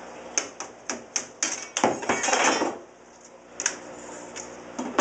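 Metal clanking and scraping against a glass pane as the frame strips of an old single-pane window are pried off the glass. There is a quick run of about six sharp knocks, then a scraping rasp lasting nearly a second about two seconds in, and a few more knocks later on.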